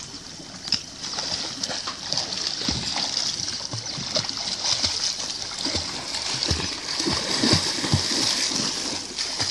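A swimmer splashing in the sea, arm strokes slapping the water at irregular intervals over a steady wash of water noise.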